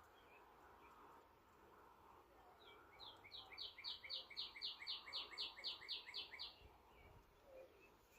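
A songbird singing a run of about a dozen quick, evenly repeated chirping notes, about four a second, starting about three seconds in and lasting some three and a half seconds, over otherwise near silence.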